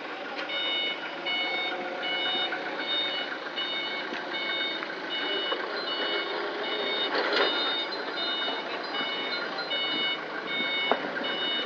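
Electronic reversing-type warning beeper sounding a steady string of short, shrill beeps, about two a second, over a steady background rumble of machinery. Two sharp knocks stand out, one about seven seconds in and one near the end.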